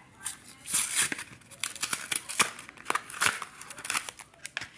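Plastic blister packaging of trading-card packs crackling and clicking as the packs are handled and one is pulled from a stack, in a run of short, irregular crinkly noises.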